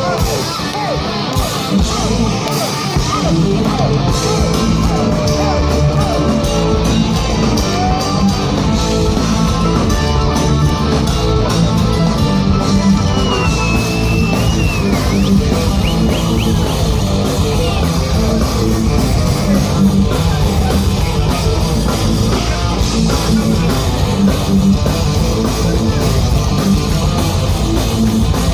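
Folk-metal band playing an instrumental passage live: distorted electric guitars and drum kit keeping a steady beat, with a lead melody line over the top.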